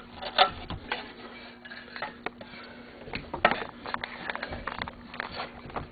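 Metal engine parts and hand tools clinking and knocking during snowmobile engine reassembly, in irregular clicks with two louder knocks, about half a second in and about three and a half seconds in, over a faint steady hum.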